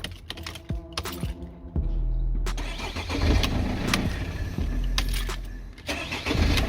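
Ignition key jangling and clicking as a Mercedes W203 is tried for a start, followed from about two and a half seconds in by a stretch of rougher mechanical noise. The start attempt blows the freshly fitted 20 A starter fuse (fuse 52) again: the no-crank fault shorting the starter circuit.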